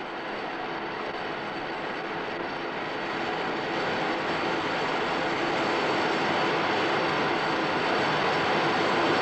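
Steady rushing airflow noise of a high-speed wind tunnel, growing gradually louder as the tunnel's airspeed is raised.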